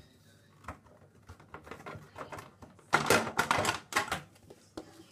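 Plastic kick plate of a washing machine being prised off with a flat-blade screwdriver: scattered clicks and knocks, then a quick rattle of plastic clicks about three seconds in as the clips let go.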